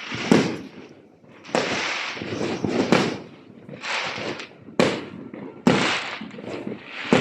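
Fireworks going off in a rapid series of about seven loud bangs, roughly one a second, each trailing off in a long echo.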